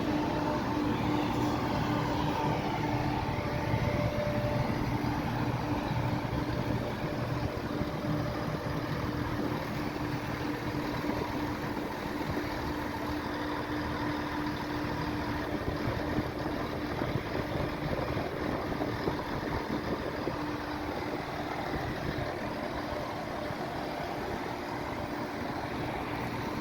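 Class 168 diesel multiple unit standing at the platform with its underfloor diesel engines idling: a steady hum with one constant tone.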